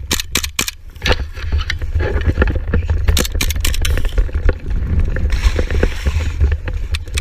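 Airsoft guns firing in quick clusters of sharp clicks, one cluster about a second in and another around three seconds in. A steady low rumble runs underneath.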